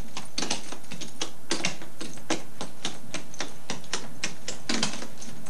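Clogging taps clicking on a hard floor as a dancer steps through a routine: an uneven run of sharp clicks, about four a second.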